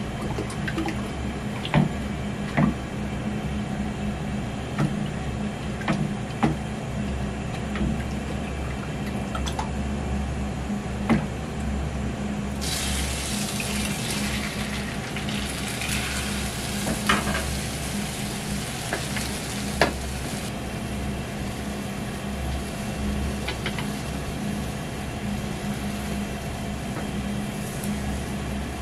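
Beaten egg sizzling in a hot square tamagoyaki pan as it is ladled in. The hiss starts a little before halfway and drops off about two-thirds of the way through, over a steady low hum, with scattered clicks of the ladle and chopsticks against the pan.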